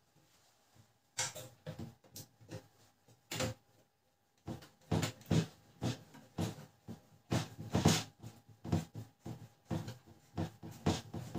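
Irregular clicks and knocks of printer parts being handled while a replacement gear motor is fitted into a Canon LBP 2900 laser printer, coming faster and louder in the second half.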